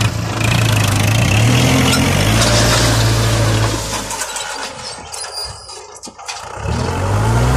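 Kubota MU4501 tractor's four-cylinder diesel engine running steadily while pulling a cultivator through the soil, its pitch stepping up briefly a second or so in. Past the middle the engine sound drops away for about two seconds, then comes back with the pitch rising.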